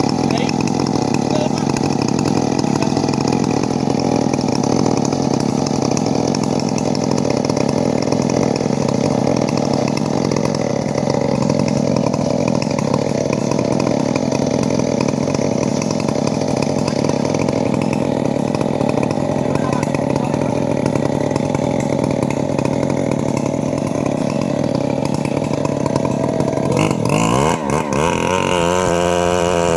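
Small engine running a saw steadily at high revs while cutting a large teak log. About 27 seconds in the engine note changes, its pitch swinging down and up.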